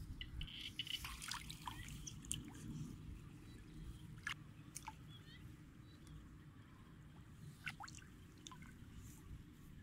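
Shallow muddy water dripping and splashing now and then as a person wades and works her hands among rice plants, with a few small sharp drips and splashes over a faint steady background.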